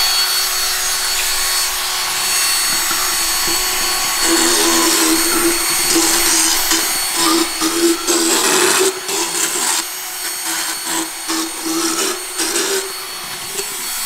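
Motorised equine dental float with a fine diamond head running with a steady whine, then grinding unevenly against a pony's teeth from about four seconds in as it rasps down sharp overgrowths. The grinding eases off near the end.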